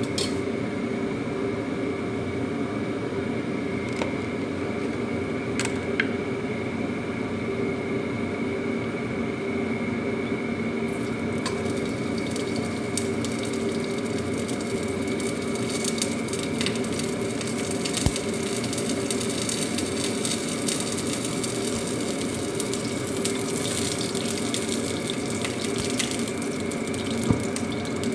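A steady droning hum runs throughout. From about eleven seconds in, a lump of fat melting in the hot wok adds a light crackling sizzle, with a few sharp clicks.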